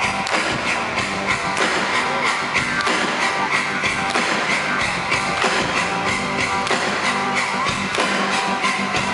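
Live rock band playing in an arena: electric guitar over a drum kit keeping a steady beat.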